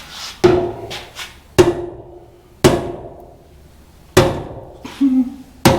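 Hammer striking metal, about six hard blows at uneven intervals of roughly a second, each leaving a brief metallic ring.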